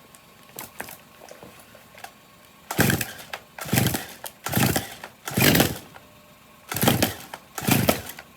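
Stihl MS230 two-stroke chainsaw being pull-started: six quick yanks of the recoil starter rope, four and then two, each about half a second, turning the engine over without it firing. The control lever is at the full-choke cold-start setting.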